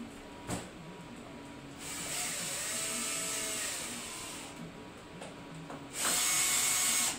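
Cordless drill-driver running in two bursts. The first, about two seconds in, winds up and back down. The second, shorter and louder, starts about six seconds in and cuts off suddenly.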